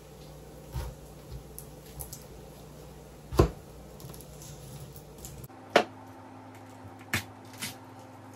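Large kitchen knife chopping down through a whole pineapple onto a plastic cutting mat: about five sharp knocks, the loudest about three and a half seconds in.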